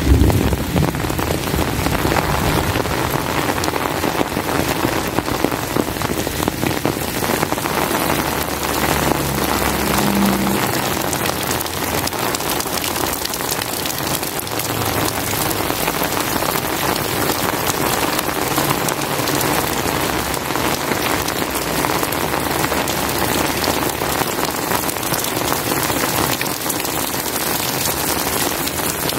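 Heavy rain falling steadily, a dense even patter on surfaces, with the last of a low thunder rumble dying away at the very start.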